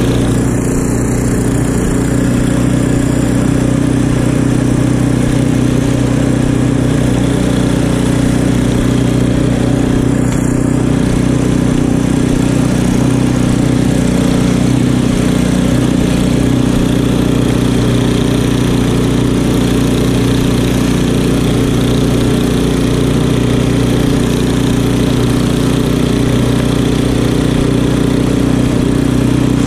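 Craftsman two-stage snow blower's gas engine running steadily under load as the auger chews through deep snow and throws it out of the chute, holding an even pitch throughout.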